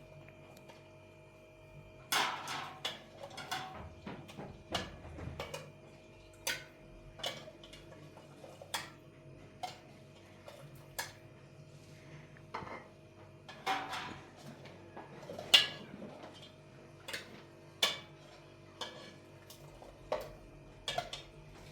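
A series of sharp knocks and clinks, hard objects striking each other about once a second, over a faint steady hum.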